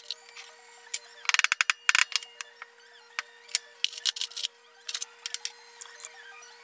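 Metal clinks and taps as a steel pry bar is worked under the edge of a milling machine's spindle pulley sheave to lever it up its bearing housing, in short bursts of quick clicks, the loudest about a second and a half in and again around two seconds.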